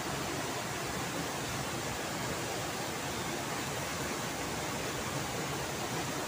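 Steady rush of water from a waterfall and fast-flowing river, an even unbroken roar.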